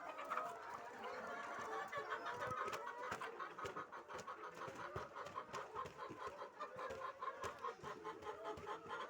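A flock of laying hens clucking and calling all at once, with many short sharp taps mixed in throughout.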